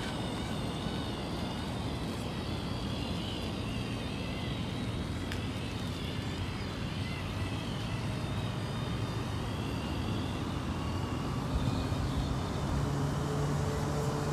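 Traxxas TRX-4 RC crawler's electric motor, gears and drive shafts running, with a steady hum under a high whine that wavers in pitch; the transmission is freshly re-greased and no ticking is left. The drivetrain grows a little louder near the end.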